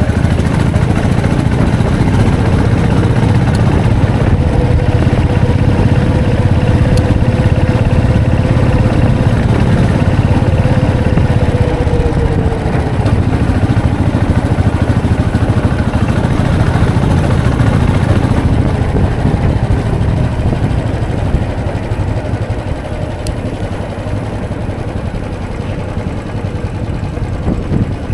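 Royal Enfield Classic 500's single-cylinder engine running steadily, loud and low-pitched, easing a little in loudness after about two-thirds of the way through.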